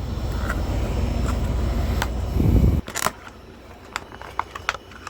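Handling noise on the recording phone: a low rumble, loudest just before it cuts off suddenly about three seconds in, then a few light clicks of small plastic light parts being handled.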